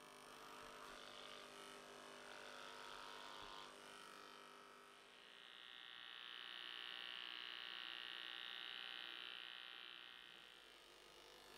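Electric hair clippers running with a faint, steady buzz as they shear hair down short. The buzz swells louder about halfway through, holds for several seconds, then fades.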